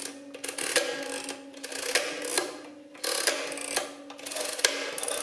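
Paddle number wheels of a 1920s Star Adding Machine being pulled down one after another with a finger to enter the leading digits of a subtraction. About five strokes, each a ratcheting run of clicks that ends in a sharp click as the wheel stops.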